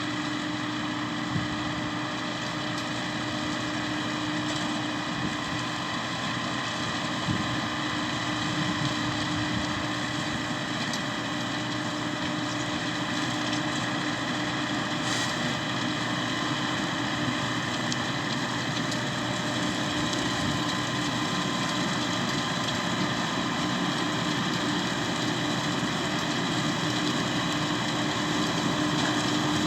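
Tractor engine running at a steady speed, a constant drone with a fixed hum, rising slightly in level near the end.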